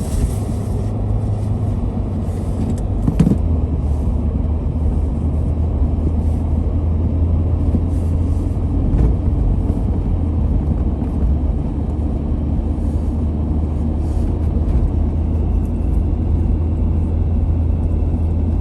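Motor vehicle running on the road: a steady low engine and road rumble whose pitch steps slightly lower about three seconds in, with a brief knock at the same moment.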